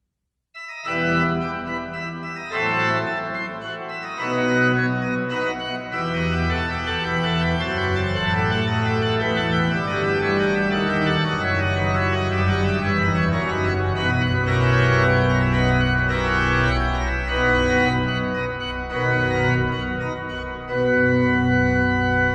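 Organ music playing sustained chords with a moving line, starting about half a second in after a brief silence.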